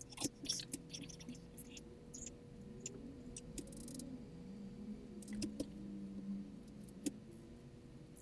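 Small Mabuchi RF-330TK can-type DC motor running weakly off homemade citric-acid, salt-water and hydrogen-peroxide cells, its faint whine wavering up and down in pitch as the weak current varies. A few light clicks from handling the clips and bottles.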